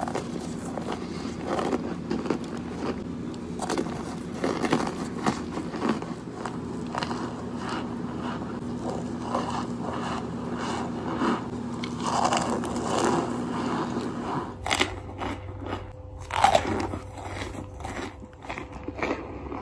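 Close-up biting and chewing of hard, crumbly white chunks: repeated crisp crunches and crackles.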